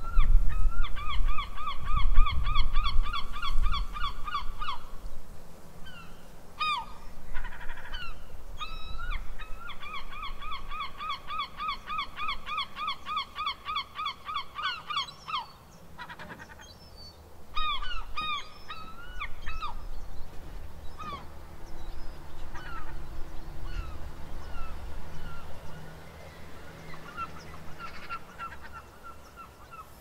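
Herring gulls calling: two long runs of rapidly repeated laughing notes, about three to four a second and several seconds each, with single yelps and mewing calls scattered between and after. A low rumble sits beneath the first few seconds.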